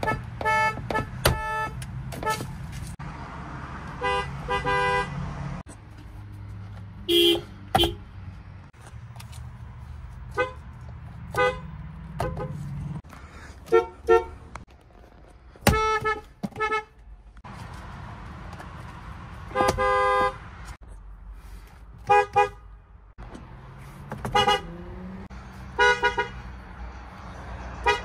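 Horns of a string of different cars, including a Hyundai and an older Ford, honked one after another. Each has its own pitch: mostly short taps and double beeps, with a few longer blasts of about half a second to a second, over a low steady hum between honks.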